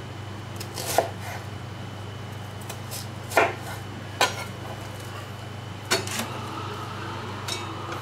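Chef's knife slicing through a large onion and knocking down on a wooden cutting board: a few sharp, separate chops at uneven intervals, some louder than others.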